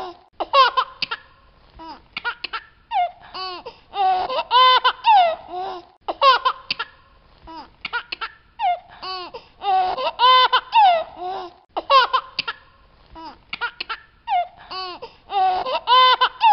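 High-pitched laughter in clusters of short rising and falling bursts, with brief pauses between.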